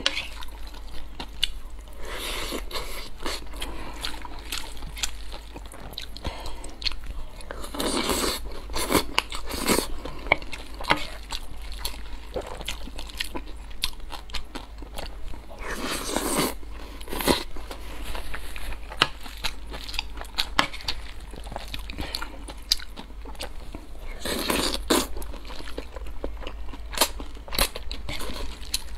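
Close-miked eating sounds from a mouthful of stir-fried glass noodles: steady wet chewing and small mouth clicks. Louder noodle slurps come about every eight seconds.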